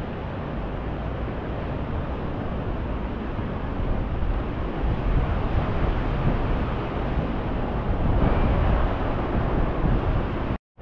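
Wind rushing over the microphone with a steady low rumble and no distinct events, a little louder about halfway through and again later. It drops out to silence for a moment just before the end.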